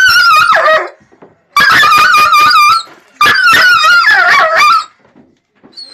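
A small, terrified dog screaming in fear as a leash holds her: three loud, high-pitched cries of about a second each, wavering in pitch, the first and last sliding down at the end.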